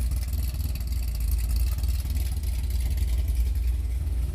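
Cars moving at highway speed: a steady rush of road and wind noise, with a heavy low rumble of wind on the microphone.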